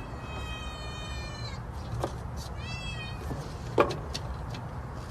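A domestic cat meowing twice: one long drawn-out meow, then a shorter one that rises and falls. Two sharp knocks come in between, the louder one after the second meow.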